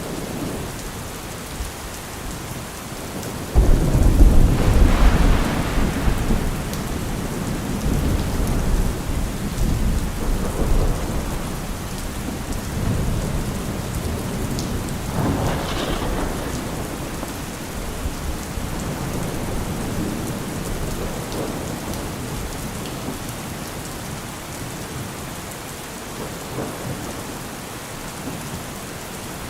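Steady rain with thunder. A sudden loud thunderclap comes about four seconds in and rumbles on for several seconds, and a second, sharper crack of thunder comes about halfway through.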